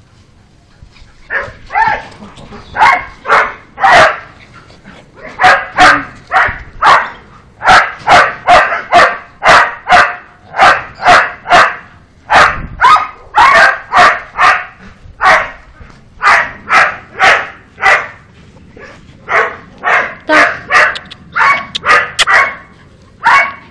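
Pitbull puppy barking repeatedly, about two barks a second, with a couple of short pauses.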